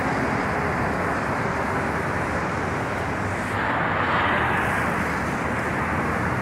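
Road traffic noise as cars drive past a pedestrian crossing, with one car passing close and a little louder about four seconds in.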